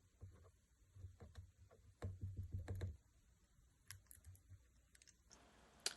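Faint, scattered light clicks and taps of small tools and phone parts being handled on the workbench, bunched together about two to three seconds in.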